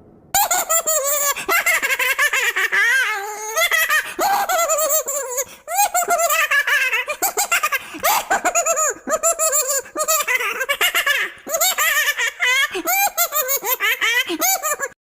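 High-pitched giggling laughter in rapid bursts, starting abruptly and cutting off suddenly at the end.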